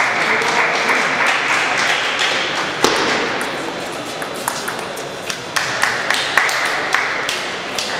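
Table tennis ball clicking off paddles and the table in quick, irregular sharp knocks, the loudest just before 3 s and a quick run of them in the second half, over the steady murmur of a busy playing hall.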